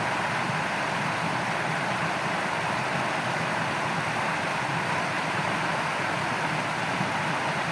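Steady rushing of shallow flowing water, an even noise that does not change.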